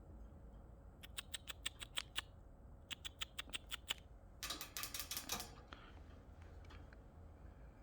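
Young parakeets making two quick runs of short, sharp clicking calls, about seven a second, then a denser half-second burst.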